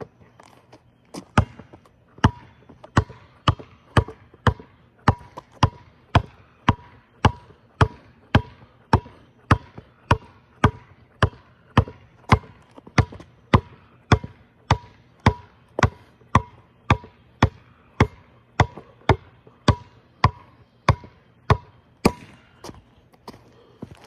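A ball being dribbled hard, bouncing in a steady rhythm of about two bounces a second, each bounce a sharp slap with a brief ring.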